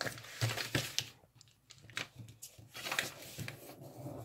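A sheet of origami paper rustling and crinkling as it is folded by hand and the crease pressed flat, in a string of short, irregular scrapes.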